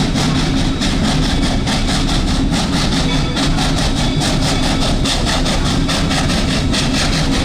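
Narrow-gauge tourist train in motion, heard from aboard: a loud, steady rumble with a fast, regular pulsing.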